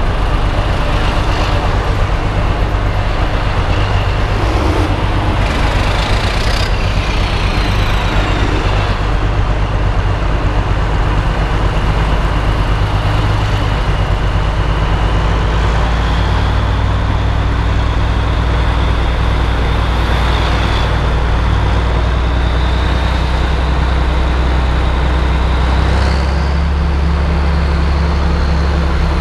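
Tractor engine running steadily while driving, heard from inside the cab, with a high whine that falls in pitch about seven seconds in and climbs again about sixteen seconds in.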